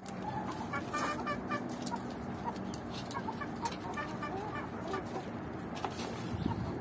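A flock of chickens clucking, with short calls repeated over and over.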